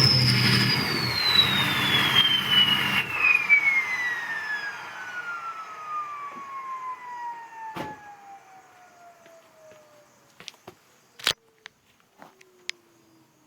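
Turbocharger whistle of a Ford 6.0 Powerstroke diesel, a clear tone sliding steadily down in pitch as the turbo spins down. The engine's running sound stops about three seconds in, leaving the fading whistle alone, with a few sharp clicks near the end.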